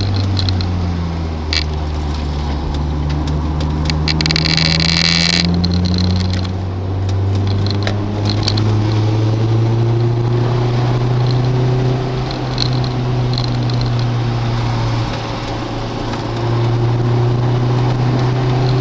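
Car engine running under varying throttle, its low note slowly rising and falling, with a brief high-pitched squeal about four seconds in.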